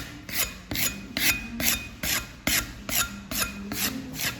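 Rhythmic rasping strokes of a hand tool worked back and forth over a hard surface, about three to four strokes a second, as in hand-sanding or scraping during fire-damage restoration.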